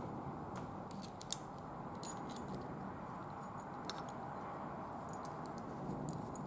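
Small steel parts of a wheel-lock mechanism clicking and clinking lightly as they are handled and fitted: a scattering of sharp, light clicks, the sharpest just over a second in, over a steady low room hum.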